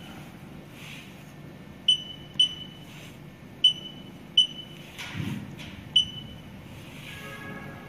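Touchscreen control panel of an Infitek TSP-CV1 closed tissue processor beeping once for each on-screen key pressed: five short, high beeps at uneven intervals, as keys are tapped.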